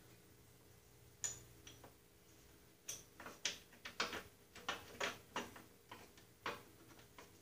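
Faint, irregular metal clicks and taps: a single click, then from about three seconds in a run of roughly two a second, as a pin and pliers are worked on a riding mower's shift lever linkage.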